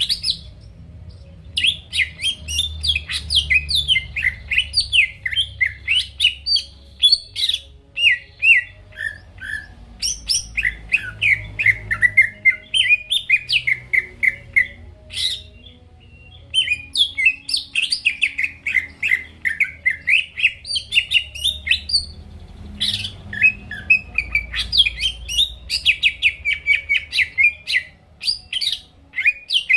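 Green leafbird (cucak ijo) in full song: long runs of rapid, varied chirps and whistled notes, broken by brief pauses about a second in, about a third of the way through, around the middle, and about three-quarters through.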